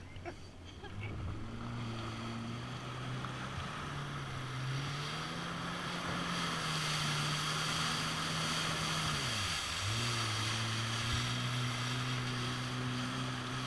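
Kawasaki jet ski's engine running under throttle, with water spray hissing off the hull. The engine note rises about a third of the way in, dips briefly as the throttle is let off about two-thirds through, then picks up again and winds down near the end.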